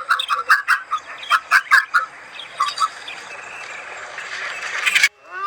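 A bird calling in a rapid series of short, sharp notes, about four to five a second, which break off after about two seconds, with a few more calls a little later.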